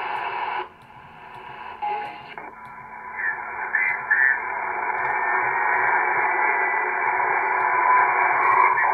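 Shortwave receiver static and hiss from an RTL-SDR dongle being tuned across the 40-metre band. The noise drops and thins about a second in, then comes back as a steady hiss from about two and a half seconds on.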